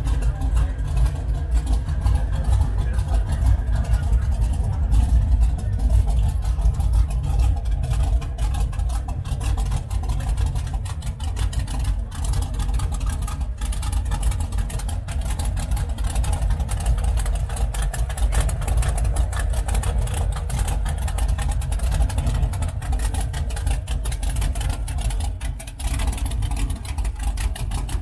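Hot rod's V8 engine idling loudly through short open headers, a steady low rumble.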